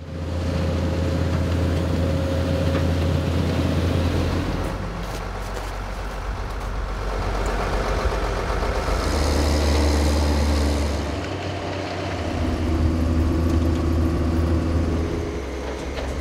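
Diesel engine of a Kässbohrer PistenBully snow groomer running with a steady low drone, its pitch and loudness shifting a few times.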